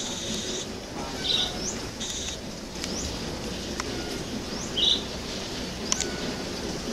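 Wild birds calling in the morning. A short, high rising chirp repeats about once a second, with two louder buzzy notes, one a little over a second in and one near five seconds, and a couple of sharp clicks.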